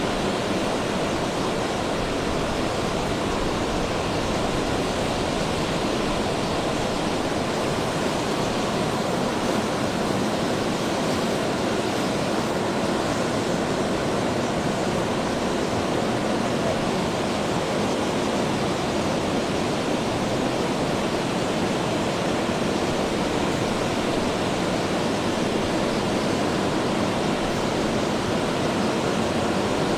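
Steady heavy rain, an even hiss with no breaks.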